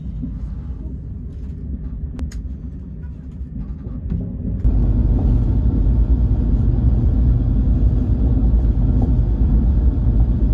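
Steady low rumble of a KTX high-speed train running, heard from inside the carriage. It gets abruptly louder about four and a half seconds in and stays that way.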